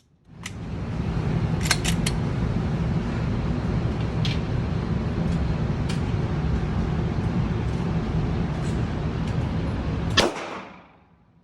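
A steady loud rumbling noise with a handful of sharp cracks of gunfire, three of them in quick succession about two seconds in. The rumble stops abruptly with a final crack about ten seconds in.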